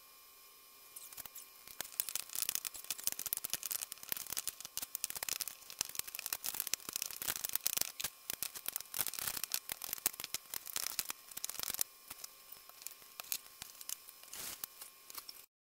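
Close handling noise at a kitchen counter: a dense run of crackling, rustling and clicking as hands work coloured cookie dough and shift bowls about. It cuts off suddenly near the end.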